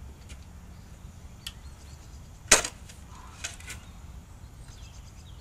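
A few irregular sharp knocks from hammering while the small house is demolished, the loudest about two and a half seconds in, over a low steady rumble.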